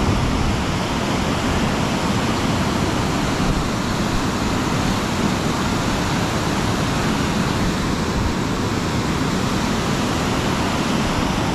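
Steady rushing noise of fast-moving river water flowing out below a dam.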